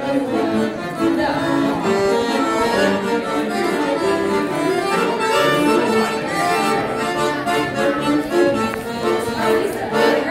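Piano accordion being played in an improvised riff, a fast run of short notes over held chords.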